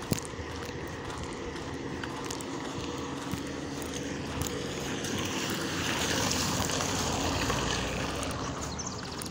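A car driving up and passing close by on a wet road: a low engine hum under the hiss of tyres on wet tarmac, which swells to its loudest a little past halfway through and then fades.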